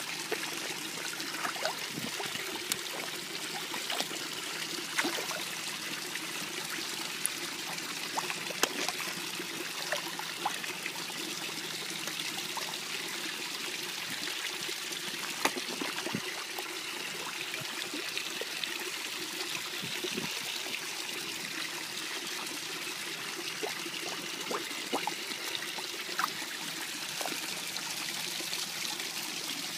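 Pond water trickling steadily, with scattered small splashes from koi crowding and thrashing at the surface.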